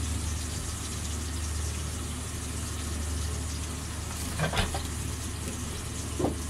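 Breaded schnitzel frying in hot oil: a steady sizzle over a steady low hum, with two brief faint sounds about four and a half and six seconds in.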